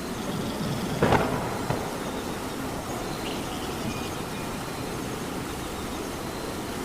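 Steady rain hiss, with a short, sharp crack about a second in and a smaller one just after.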